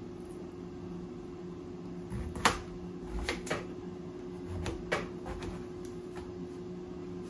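Kitchen knife cutting the stem end off an eggplant: a few sharp knocks of the blade on a plastic cutting board, the loudest about two and a half seconds in, over a steady mechanical hum.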